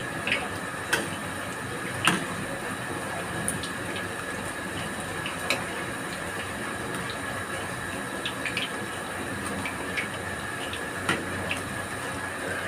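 Bakwan vegetable fritters deep-frying in a wok of hot oil: a steady sizzle with scattered sharp pops and clicks.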